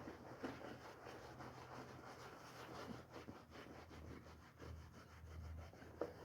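Faint, quick repeated rubbing strokes of a scrub brush worked over a wet woolen rug.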